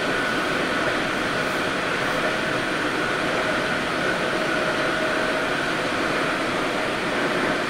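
Sendai City Subway 1000N-series train running at speed, heard from inside the car: a steady rumble of wheels on rail with a faint steady whine over it.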